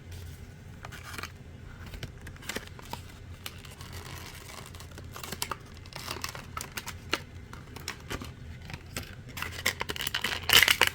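Diecast toy car packaging being opened by hand: scattered clicks and scratches of cardboard and plastic, with a denser burst of crinkling and tearing near the end.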